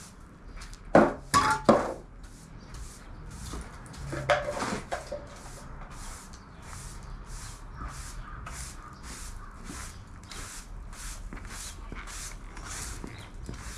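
A broom sweeping a garage floor in steady strokes, about two a second. A few loud clattering knocks come about a second in and again about four seconds in.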